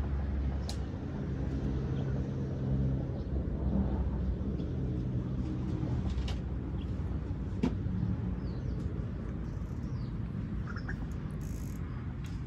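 A steady low mechanical rumble with a hum, with a few short sharp clicks and faint bird chirps near the end.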